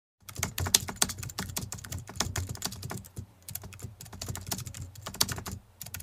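Computer keyboard typing sound effect: rapid, irregular key clicks, with a brief pause shortly before the end.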